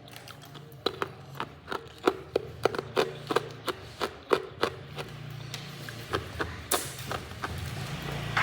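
Hard ice being bitten and chewed close to the microphone: a rapid run of sharp crunches and cracks, about three or four a second, thinning out in the last few seconds.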